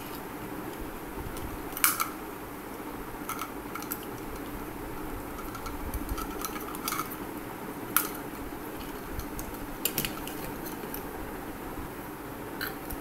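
Small hard objects being handled: about seven sharp clicks and knocks, one every second or two, as a plastic-cased temperature-humidity controller with its plugs and a light bulb are picked up and turned over, over a steady background hum.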